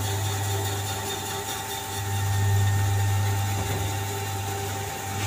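Screw-type livestock feed mixer running, its screw turning the feed: a steady machine hum with a few steady tones over it, a little louder about two seconds in.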